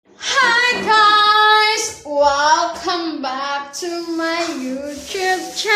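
A high-pitched voice singing in long, drawn-out notes that slide up and down, with short breaks between phrases.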